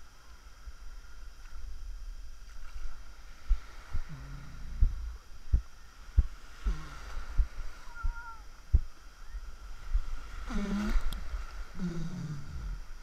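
Sea waves sloshing around a camera held at the water's surface, with a series of low knocks as water slaps against it. People's voices call out a few times, loudest near the end.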